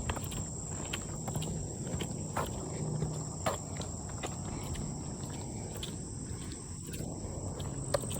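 Footsteps walking along a path, with a steady high-pitched insect drone throughout.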